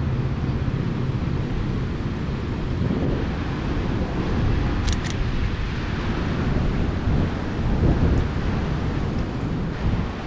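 Wind buffeting the microphone over the low rumble of heavy storm surf, with swells of louder noise as gusts or waves come through. Two short, sharp clicks about halfway through.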